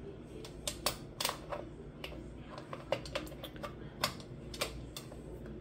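Irregular sharp clicks and taps, a dozen or so, as the black wing nuts clamping the aluminium lid of an All-American pressure canner are turned down and tightened.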